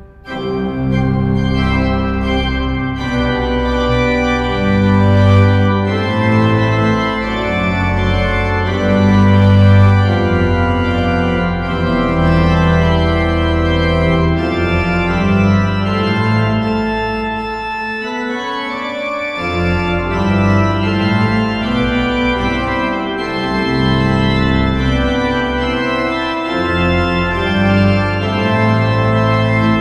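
Hauptwerk virtual pipe organ playing slow, sustained full chords over a deep pedal bass, coming in from a brief lull at the start; the bass drops out for about a second two-thirds of the way through.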